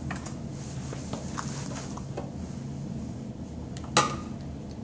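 Plastic toy dishes knocked on a tabletop: a few faint clicks, then one sharp knock about four seconds in, over a low steady room hum.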